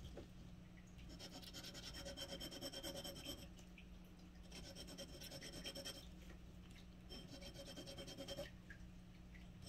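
Faint scratching of a glass dip pen's nib scribbling rapidly back and forth on a paper swatch card, in three bouts of quick strokes.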